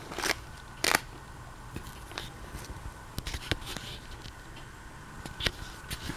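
Handling noise: scattered short rustles and clicks as plastic-sleeved pages in a ring binder are turned and handled, the sharpest about a second in and again near the end.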